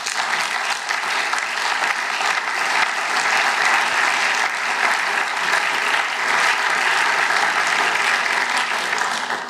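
Sustained applause from many members of parliament clapping at their seats, holding steady throughout.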